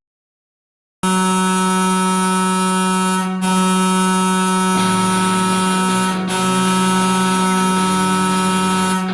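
Ice hockey arena goal horn, starting sharply about a second in and sounding one long steady blast of about eight seconds on a single low pitch rich in overtones. A lower sound joins underneath about five seconds in.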